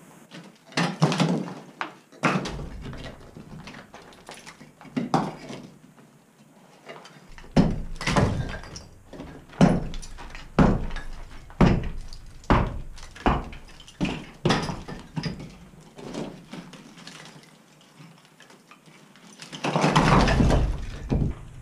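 Brickwork being broken out of a fireplace opening: a run of sharp knocks on brick and mortar, about one a second, then near the end a longer clatter of bricks and rubble coming down.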